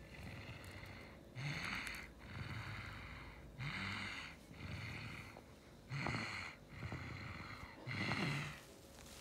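A person breathing close to the microphone, a louder breath about every two seconds, over a faint steady hum.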